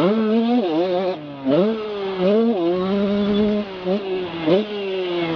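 Motocross bike engine ridden hard, heard from the rider's body: it revs up and falls back again and again, the pitch rising and dropping, with several short dips in loudness.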